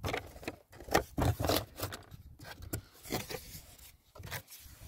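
Speaker box being opened and its packaging handled: irregular scraping and rubbing strokes.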